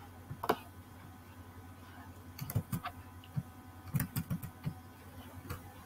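Scattered light clicks and taps at a computer, mouse and keyboard, a few at a time with a small cluster near the middle, over a steady low electrical hum.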